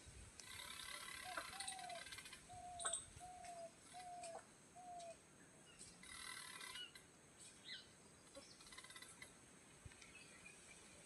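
Faint animal calls: a run of about six short, even calls at roughly two a second, with patches of soft higher chirring around them.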